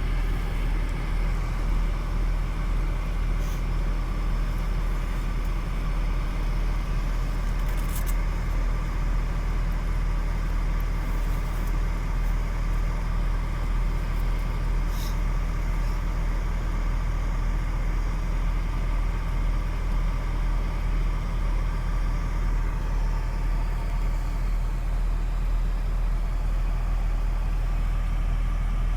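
Truck crane's engine running steadily at a constant low speed, with no revving, and a couple of faint clicks.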